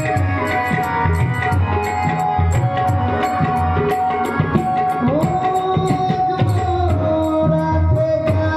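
Devotional music, mostly instrumental: tabla strokes keep a steady rhythm under a held, sustained melody, with evenly repeating high ticks of a small percussion instrument above.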